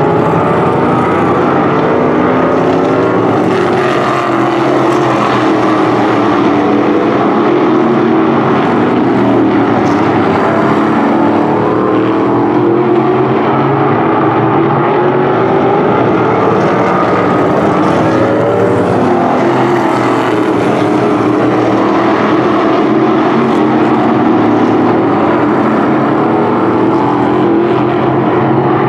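Several winged sprint car engines running as the cars circle the oval, overlapping engine notes rising and falling in pitch.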